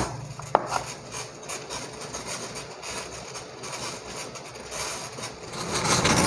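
A single knife tap on a plastic cutting board about half a second in, then faint kitchen handling noises. Near the end comes the rising, even rush of a pot of water boiling on a gas stove.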